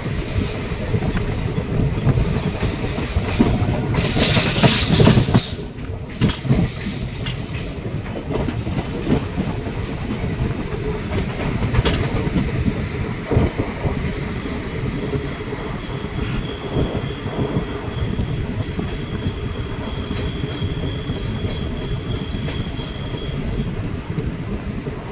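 Indian Railways express passenger coach running on the rails, heard from the open door: a steady rumble with wheels clattering over the rail joints. About four seconds in a louder rushing burst lasts about a second, and in the second half a faint high whine runs for several seconds.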